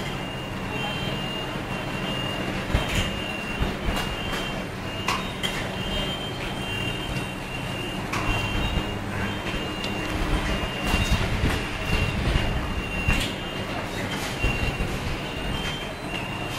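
Steady workshop machinery hum with a high tone running through it, and scattered sharp clicks and clacks as choke coils are loaded by hand into a metal holding fixture.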